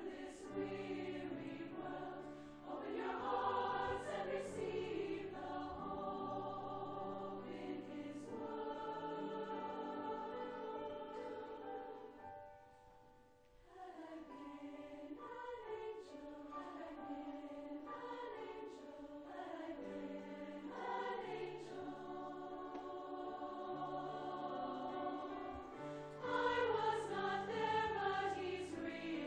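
Women's choir singing a slow Christmas song in parts over instrumental accompaniment, with long held notes. The music almost stops for a moment about 13 seconds in, then swells louder near the end.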